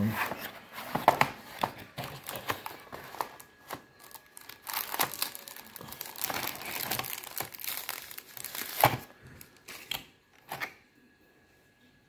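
Packaging being handled as the cardboard box of a 2.5-inch external hard-drive case is opened and the enclosure is pulled out of its wrapping: irregular crinkling, rustling and tearing with sharp little clicks. It dies away a little before the end.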